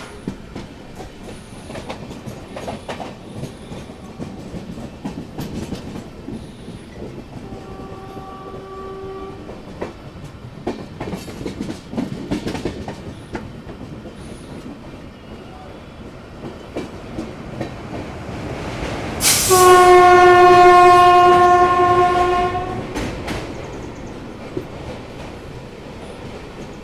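Electric locomotive horn sounding twice: a short blast about eight seconds in and a longer, much louder one about twenty seconds in. Under it runs the steady noise of a passenger train at speed, with the wheels clicking over rail joints.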